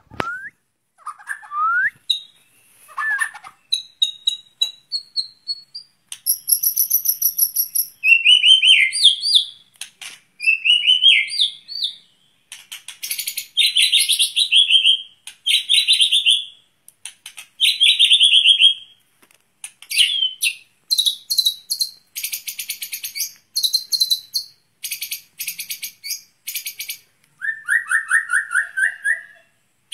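White-rumped shama (murai batu) singing a long, varied song: loud clear whistles, rising and falling slurred notes and fast chattering trills, delivered phrase after phrase with short pauses between them.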